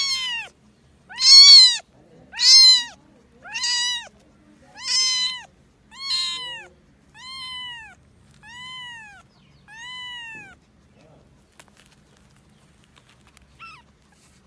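A young kitten mewing repeatedly while lifted away from its mother, about one call a second, each call rising then falling in pitch. The mews grow fainter after about six seconds and stop about ten seconds in, with one short mew near the end.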